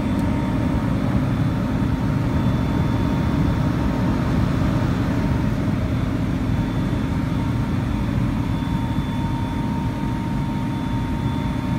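MANN+HUMMEL ScandMist 200D oil mist separator running: a steady low hum with a faint, constant whine above it.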